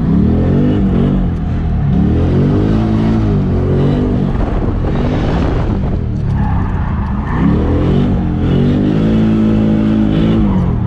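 LS3 V8 in a Nissan 240SX being driven hard. The revs climb and drop again and again, about every two seconds.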